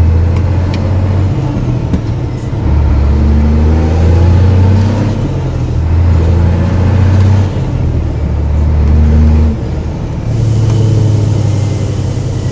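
Scania 124 360's six-cylinder diesel heard from inside the cab, pulling hard under acceleration up through the gears. The engine note drops away briefly at each of about four gear changes, then comes back under load.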